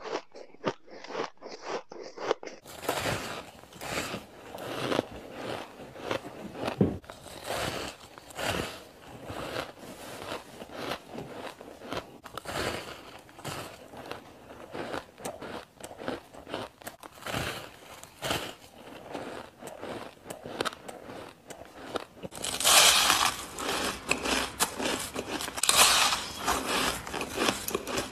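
Soft, snowy white ice being bitten and chewed, many irregular crunches one after another. The sound changes about two and a half seconds in and again after about twenty-two seconds, where the crunching gets louder and crisper.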